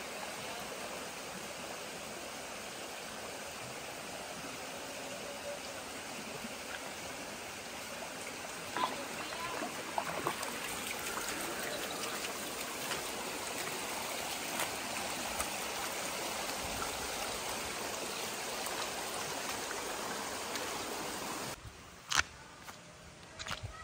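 Shallow stream running steadily over rocks, with a trickling hiss. Near the end the water sound drops away abruptly, leaving a few sharp clicks.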